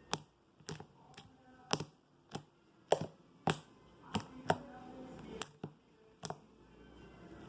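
A dozen or so sharp, separate taps or clicks, irregularly spaced at roughly two a second.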